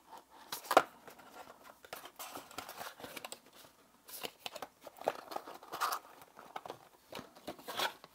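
Rustling, crinkling and light clicks from handling a power bank's included accessories, a small carry pouch and USB charging cables, in irregular bursts.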